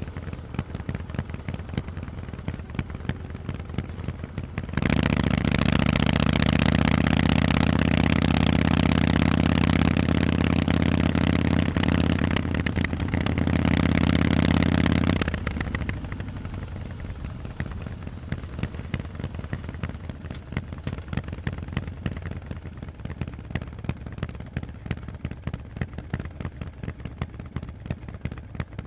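Harley-Davidson Forty-Eight's air-cooled 1200 cc V-twin running through loud Vance & Hines exhausts. It runs quieter at first, then about five seconds in the engine opens up, loud and steady for about ten seconds, and drops back to quieter running for the rest.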